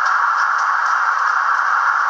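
Trix BR140 model electric locomotive's sound decoder playing a steady, hiss-like running sound through its small onboard speaker, with a few faint clicks.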